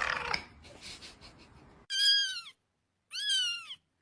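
A cat meowing twice: two short, high-pitched meows, each rising then falling in pitch, about a second apart.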